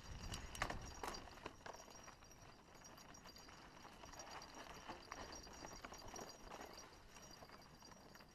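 Haro hardtail mountain bike coasting downhill on a dry dirt and gravel trail: faint tyre crunch with irregular clicks and rattles, loudest about half a second to a second and a half in.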